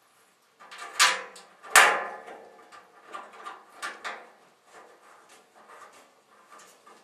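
Metal tool chest being handled: two loud clanks with a ringing tail about a second in and just under two seconds in, followed by lighter clicks and rattles.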